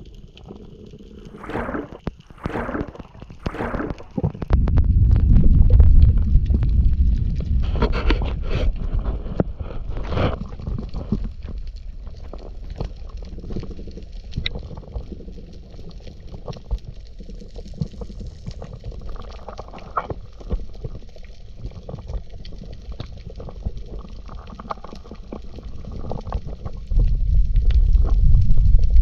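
Muffled underwater sound picked up by a diver's action camera: a low rumble of water moving past the camera, swelling for a few seconds about four seconds in and again near the end, with scattered clicks and knocks.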